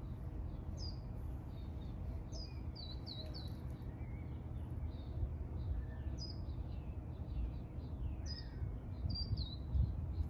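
Small birds chirping: clusters of quick, high notes sliding downward every few seconds, over a steady low rumble.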